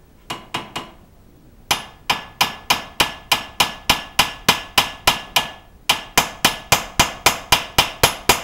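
Hammer blows on the steel of a Suzuki Wagon R's front wheel hub, each with a metallic ring: three quick strikes, a pause of about a second, then a steady run of about three strikes a second with a brief break about two thirds of the way through.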